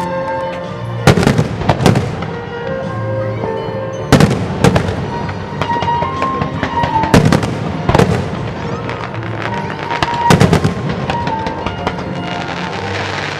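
Aerial fireworks shells bursting with sharp, echoing bangs, one every second or two and sometimes two close together, over music with a held-note melody.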